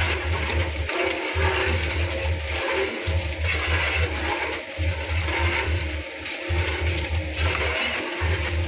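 Bakery spiral dough mixer running, its motor humming low while the hook churns a heavy batch of dough around the steel bowl. The hum dips in a regular pulse a little under every two seconds.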